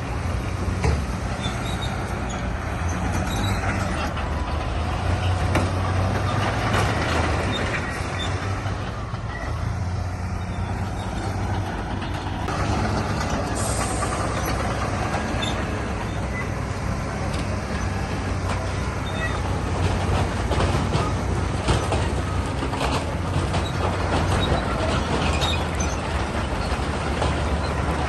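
Heavy diesel earthmoving machinery running steadily under load, a low engine drone with scattered metallic clanks and rattles.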